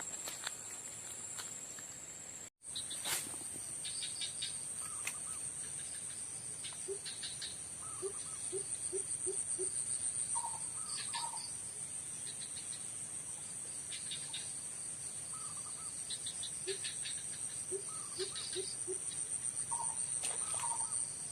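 Steady high-pitched insect chorus, with short chirping calls and quick runs of clicks coming in every few seconds.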